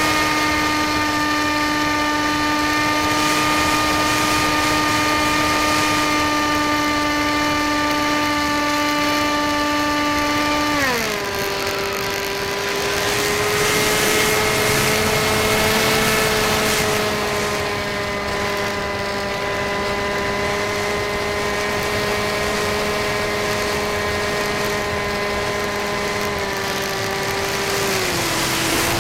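Electric motor and propeller of an RC model airplane whining steadily at a held speed. The pitch drops sharply about eleven seconds in as the motor slows, holds lower, then drops again near the end.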